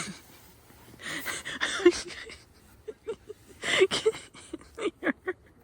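People whispering and giggling in a few short, breathy bursts.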